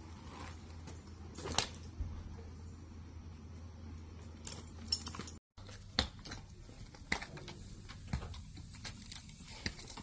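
Horse tack being handled and moved: scattered metal clinks and jingles of saddle hardware, with a few sharper knocks, over a low steady hum. The sound cuts out briefly about halfway through, after which the clinks and light knocks go on at roughly one a second as the saddled mare is led at a walk.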